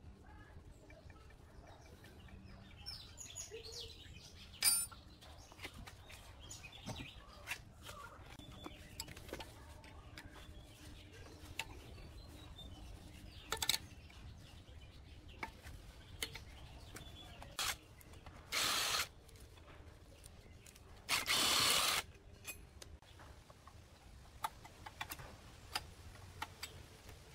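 Hand tools working on the bolts of an old cast-iron mortising machine: scattered light metallic clicks and taps of a spanner and Allen key, with birds chirping in the background. Two short hissing bursts in the second half, the second lasting about a second, are the loudest sounds.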